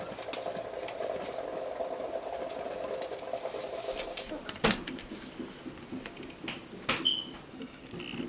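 Small handling noises at a desk: papers and plastic packaging being moved about, with sharp clicks about halfway and again near the end, over a low steady hum that stops about halfway through. Two brief high chirps.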